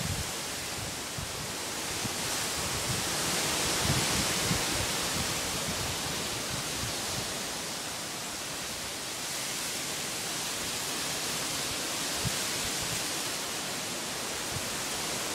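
Strong, steady wind rustling through palm fronds and tree leaves as a continuous hiss, swelling a few seconds in, with a few faint low thumps of wind on the microphone.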